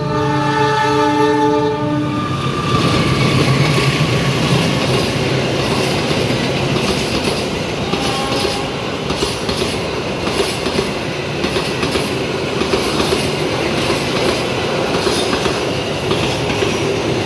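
A diesel locomotive's horn sounds a chord for about two seconds as a passenger train approaches. The train then passes close by, a steady rumble with the wheels clattering over the rail joints.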